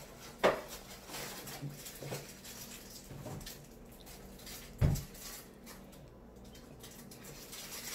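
Mouth sounds of someone chewing a crispy fried egg roll, with a sharp smack about half a second in and a low thump just before five seconds.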